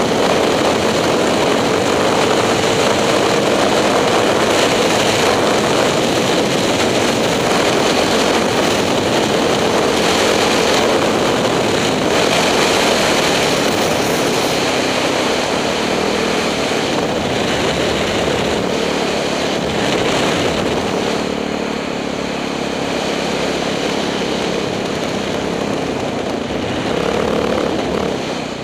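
KTM 620 LC4 single-cylinder four-stroke engine running at a steady cruising speed under way, with wind rushing over the microphone. The engine eases off a little about two-thirds of the way through.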